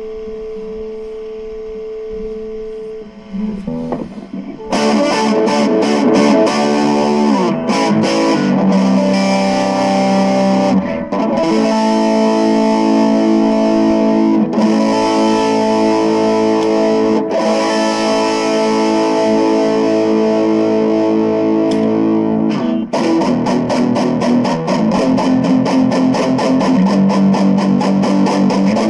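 Cort CR50 electric guitar played through a Cort MX15R amplifier with distortion. A held note rings for about three seconds, then loud overdriven chords start, and near the end it changes to quick, rhythmic strumming.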